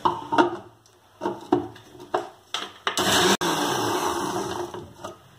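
Electric mixer grinder (mixie) with a steel jar grinding coriander, mint and green chilli into a paste. A few short bursts come first, then it runs steadily for about two seconds and winds down.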